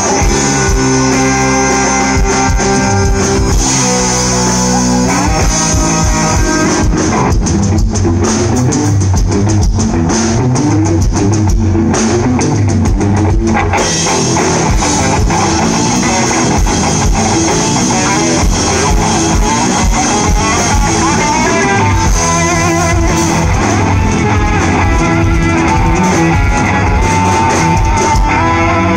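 Live rock band playing: electric guitars and bass guitar over a drum kit. It opens on held chords, then the drums join with a busy driving beat about six seconds in.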